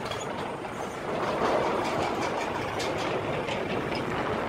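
Running noise of a vehicle driving along a road, heard from on board: a steady rumble with faint rattles, growing louder about a second in.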